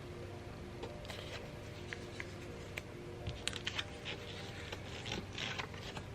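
Hands handling small objects: light scratching, rustling and small clicks, busier from about three seconds in, over faint steady background music.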